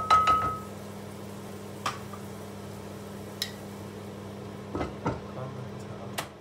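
Steady hum of a cooker-hood extractor fan over mushrooms sizzling in oil in a frying pan. A loud clank with a short ring at the start and a few lighter clicks follow, two of them about five seconds in as a glass lid is set on the pan; the hum dies away near the end.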